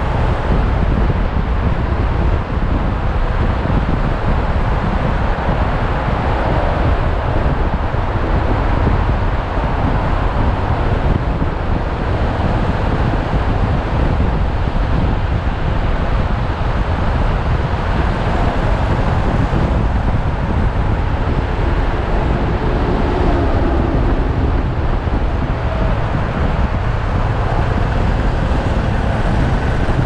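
Motorcycle riding at highway speed: steady wind rushing over the microphone, mixed with engine and road noise. A pitched engine note stands out briefly about three-quarters of the way through.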